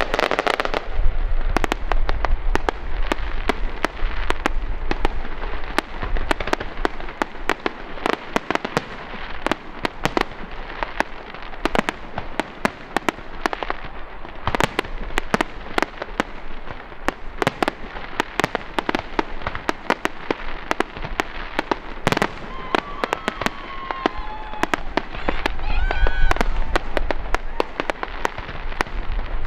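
Fireworks display going off in a dense, continuous barrage of cracks and pops, many per second, from crackling aerial shells.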